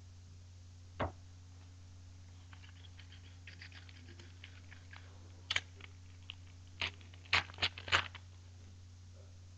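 Foil wrapper of a hockey trading card pack crinkling and tearing open, light crinkles building to several sharp crackles in the last few seconds. A single tap sounds about a second in.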